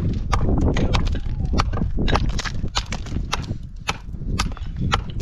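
Quick, irregular sharp knocks of hard objects striking, about four a second.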